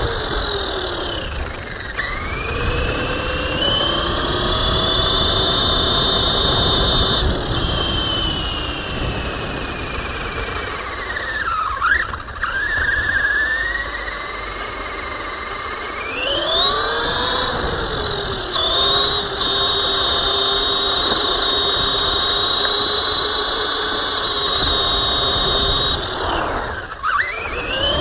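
Electric RC car's motor and drivetrain whining as it drives, the pitch climbing as it speeds up and sinking as it slows: it rises about two seconds in, drops in the middle, climbs again past halfway and dips once more near the end. A low rumble of wheels on pavement runs under it.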